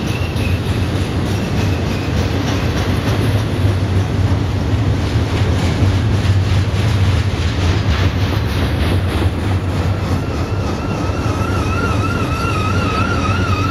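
Double-stack container train's well cars rolling past, a steady heavy rumble of wheels on rail. About ten seconds in, a wavering high squeal from the wheels joins it.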